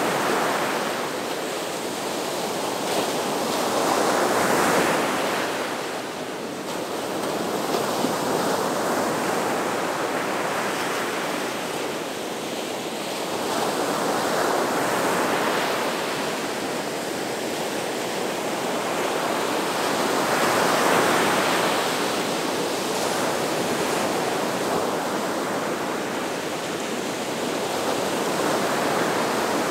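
Gulf of Mexico surf breaking on the beach in a continuous wash that swells and eases every few seconds as each wave comes in.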